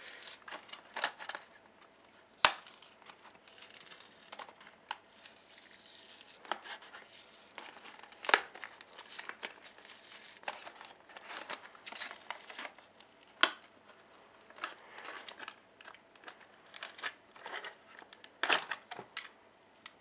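Cardboard and plastic blister packaging being pulled apart and crinkled by hand, with irregular sharp clicks and snaps, a few of them much louder, as a toy engine is freed from its box.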